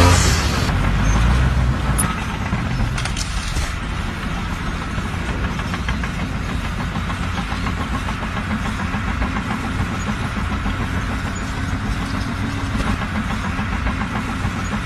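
An engine running steadily with a low, evenly pulsing rumble, louder for the first couple of seconds and then settling to an even level.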